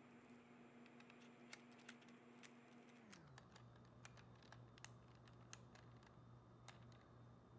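Faint, irregular small clicks of a micro Phillips screwdriver turning a tiny propeller screw into a DJI Mini 4 Pro's motor hub, over a low steady hum that drops in pitch about three seconds in.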